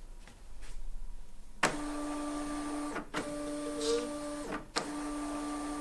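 Honeywell PX940 label printer's feed motor running in three steady runs with short pauses between, starting about a second and a half in. It is driving the calibration card through the print path during verifier calibration.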